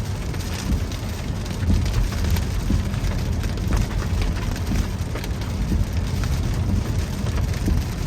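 Rain hitting a truck, heard from inside the cab while driving: many small ticks of drops over a steady low rumble of road and engine noise.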